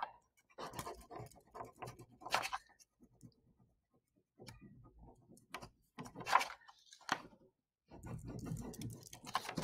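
Pink wax crayon rubbed back and forth on a sheet of paper on a tabletop, in short scratchy strokes with a couple of brief pauses.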